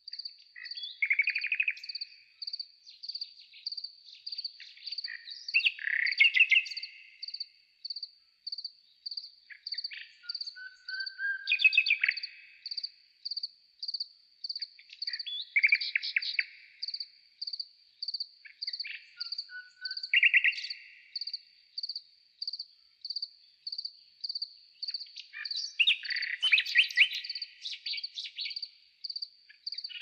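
Garden birds singing short trilled and chirping phrases every few seconds, loudest and busiest near the end. Under them an insect chirps in a steady, even high-pitched pulse, about two chirps a second.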